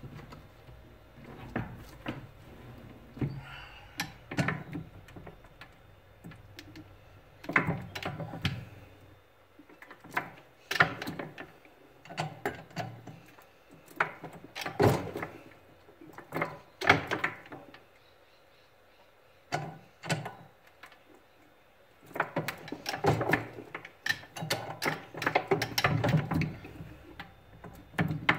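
Jeweller's rolling mill working a small platinum bar through its square-groove rolls: irregular clunks and clicks from the mill's crank and gearing, in bursts with short pauses between passes.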